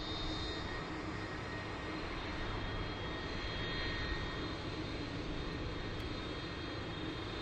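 Jet engines of a taxiing KLM Airbus A330 at low thrust: a steady rush of noise with a thin high whine running through it.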